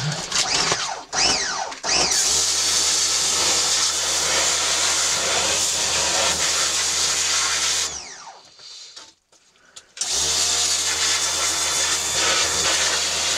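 Pressure-washer jet spraying into clay and rock, washing clay out of a mineral cavity: a loud, steady hiss over a low hum. It comes in a few short spurts at first, then runs steadily, cuts off for about two seconds past the middle, and starts again.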